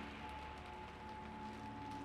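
Soft ambient background music of long held notes over a steady hiss of water.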